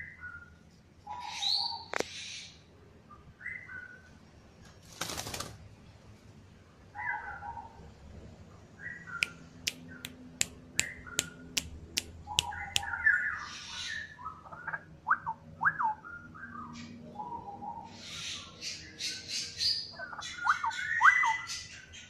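Straw-headed bulbul (cucak rowo) calling with short, spaced whistled notes that build into bursts of fuller, rising phrases in the second half. There is a brief rustle about five seconds in, and a quick run of sharp clicks around ten seconds in.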